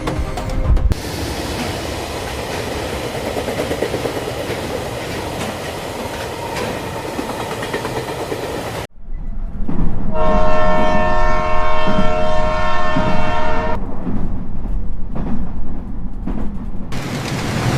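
Train sound effect: a train running with steady noise for about nine seconds, cutting off suddenly. After a short pause comes a loud horn blast of several steady tones at once, lasting about four seconds, over the continuing sound of the train.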